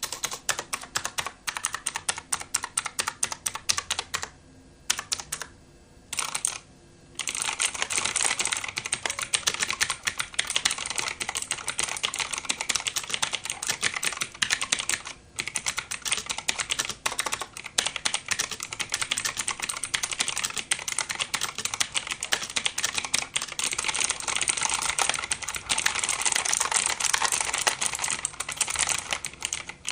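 Typing on an Armaggeddon MKA-3C mechanical keyboard: a dense, rapid clatter of key clicks. A few short pauses come about five seconds in, then the typing runs faster and more continuous.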